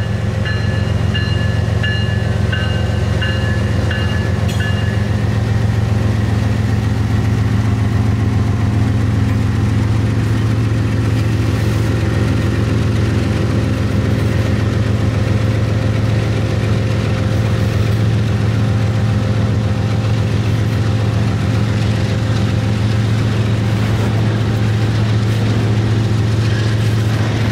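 Norfolk Southern GE diesel locomotives passing close, engines running loud and steady with a deep hum, then the rumble of double-stack intermodal cars rolling by. A bell rings about twice a second for the first few seconds, then stops.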